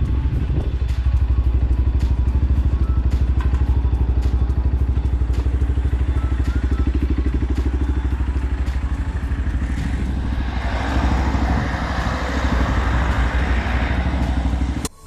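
125cc motorcycle engine running with a steady, fast pulsing rumble. A rushing noise swells about ten seconds in. The sound cuts off suddenly near the end.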